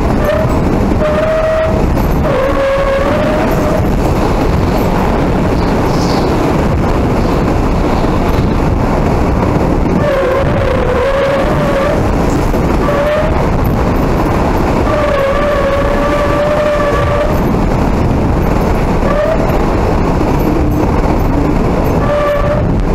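Hurricane wind blowing hard: a loud, steady rush with a wavering whistle that rises and fades several times.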